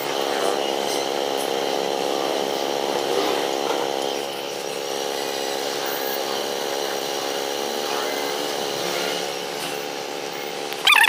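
A motor or engine running steadily at a constant pitch, with an even hum.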